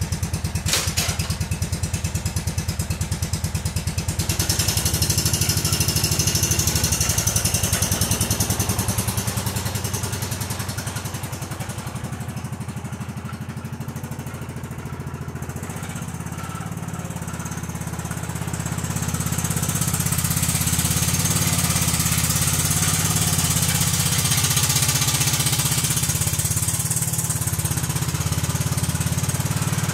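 Freshly rebuilt Kohler Command CH16S engine on a Cub Cadet 2166 garden tractor running while it warms up after a cold start, as the tractor is driven. The engine sound dips somewhat about ten seconds in and comes back up after about eighteen seconds.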